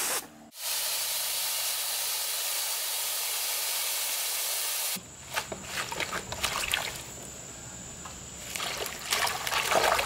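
Garden hose spray nozzle hissing steadily as it showers water, cutting off abruptly about five seconds in. After that comes quieter splashing and rustling as hands swish and rub leafy greens in water in a stainless steel bowl.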